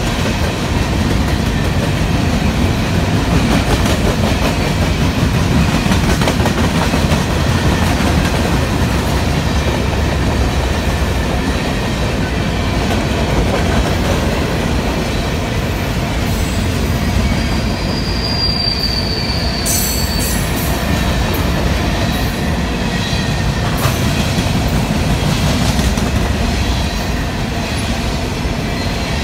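Covered hopper cars of a freight grain train rolling past close by: a steady low rumble of steel wheels on the rails, with a brief high wheel squeal about two-thirds of the way through.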